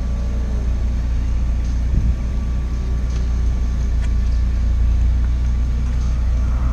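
Steady low rumble of a Mitsubishi Lancer Evolution's turbocharged 2.0-litre four-cylinder engine running at idle or very low speed, heard from inside the cabin, with a few faint clicks.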